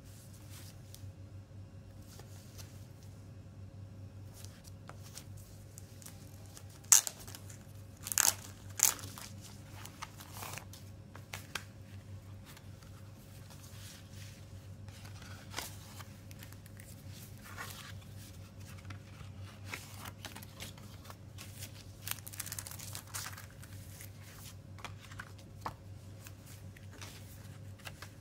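Plastic shrink-wrap on a CD case being torn open, with a few sharp loud rips about a quarter of the way in, then crinkling plastic and rustling of the card sleeve and paper booklet as they are handled and opened.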